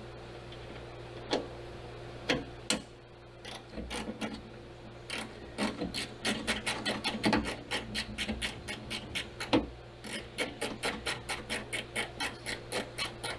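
Small ratcheting screwdriver clicking as it backs out a tiny screw: a few scattered clicks at first, then a steady run of about three or four ticks a second through the second half.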